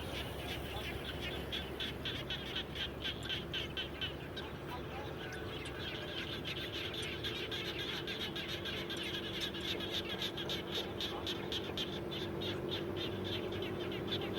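A chorus of frogs calling after rain: dense, rapidly repeated pulsing calls, several a second, over a lower, steadier chorus.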